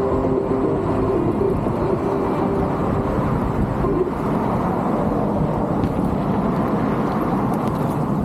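Wind buffeting the camera microphone while riding an electric unicycle, a steady low rushing rumble. A faint steady hum of several tones sits over it and fades out about four seconds in.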